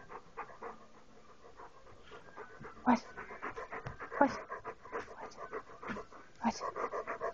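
Dog panting close to the microphone with its mouth open. The pants get louder after the first couple of seconds, with a few stronger breaths mixed in.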